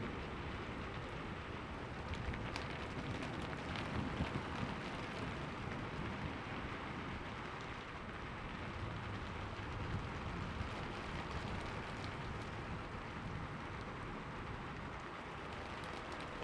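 Steady rain falling, with scattered drops ticking and a low rumble of distant thunder swelling now and then underneath.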